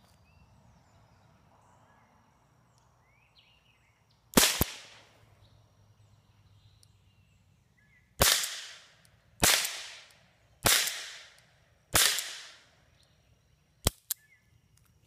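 RG 14 .22 LR revolver fired double action with Aguila Super Colibri primer-only rounds, which are very low noise: sharp cracks with a short ring-off, one about four seconds in, then four more about a second and a quarter apart. Two light clicks follow near the end.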